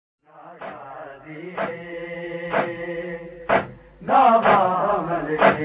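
Opening of a Punjabi noha (Shia lament): male voices chanting over a held drone, with a sharp beat about once a second. A louder lead voice comes in about four seconds in.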